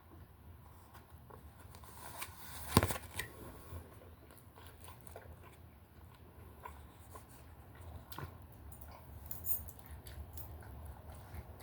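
A person biting and chewing a hot chili dog close to the microphone, with scattered small clicks and one sharper knock about three seconds in.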